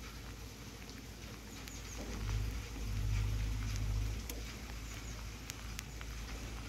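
Light rain outdoors on a wet road, with a low rumble that swells between about two and four seconds in and scattered sharp ticks of drops.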